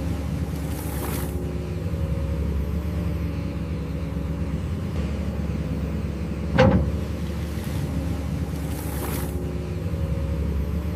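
Diesel engine of heavy construction equipment running steadily, with one sharp knock about two-thirds of the way through.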